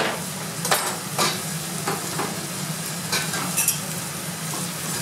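Minced meat, tomatoes and aromatics sizzling steadily in a large metal pot on the hob, with several short clicks scattered through.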